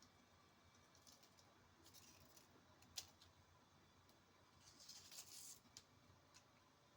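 Near silence: quiet room tone with a few faint ticks, one sharper click about three seconds in, and a brief soft rustle a little before the end.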